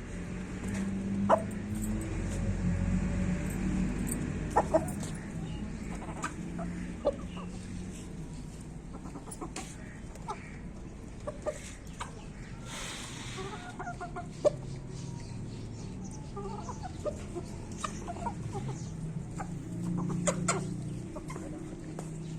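A flock of desi chickens clucking, with scattered short calls and sharp clicks throughout.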